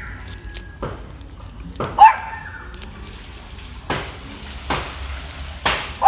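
A dog barking: one sharp bark about two seconds in, with a few shorter clicks or knocks scattered after it.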